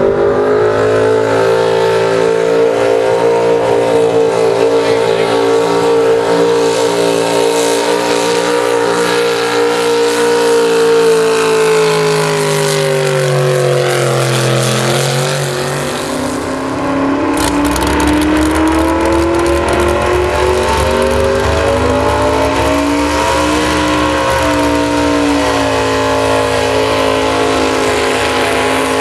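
Pro stock mini truck's engine running at high revs under load during a truck pull. Its pitch sags about halfway through and then climbs back, and a deeper rumble comes in a little after the dip.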